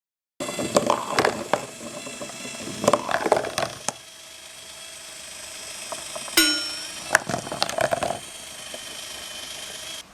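Glass marbles clattering and rolling along a cardboard marble run in three bursts, over the steady faint hum of the small electric motor that drives it. About six seconds in, a single sharp strike rings out and fades.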